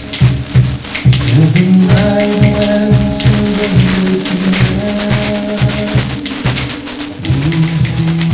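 Upbeat music with a pulsing bass line, and a hand tambourine jingling along on the beat.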